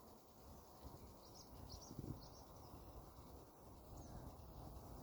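Quiet outdoor ambience: a few faint, high bird chirps in a short cluster around the middle, over a steady low rumble, with a soft thump about two seconds in.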